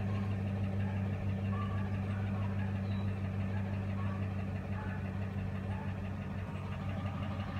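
Ford F-150 pickup's engine idling with a steady low hum, heard from inside the cab.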